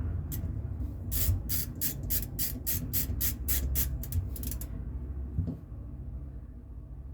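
Ratchet wrench clicking in an even run, about four clicks a second for some three and a half seconds, while a fitting is tightened into a Solex carburettor body, then a single knock.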